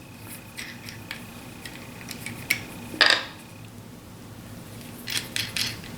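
Bolts and steel washers of a miter clamp corner block clinking and clicking as the assembly is taken apart by hand, with a louder clack about three seconds in and a flurry of small clicks near the end.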